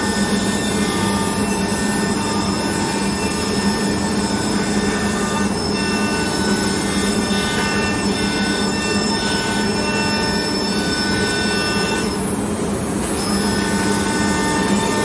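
Holztek HT-R1M CNC nesting router spindle running at high speed while its bit cuts grooves into a board panel: a steady high whine over the noise of the cut. The whine drops out briefly about five seconds in and again about twelve seconds in.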